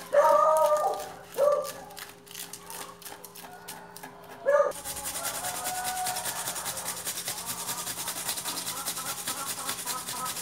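Knife chopping greens on a wooden cutting board, broken by three short, loud animal calls, the first the loudest. From about five seconds in, a carrot scraped on a hand-held metal grater in quick, steady strokes.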